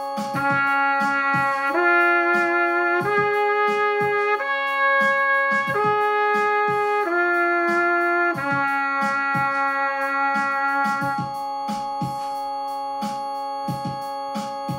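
Trumpet playing the E-flat major arpeggio in slow, even notes, up to the top note and back down to a long held note that ends about eleven seconds in. Under it runs a keyboard backing with a steady beat.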